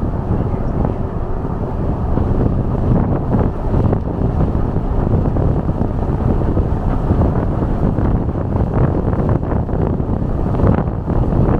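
Steady road and wind noise from a truck driving at speed, with wind buffeting the microphone.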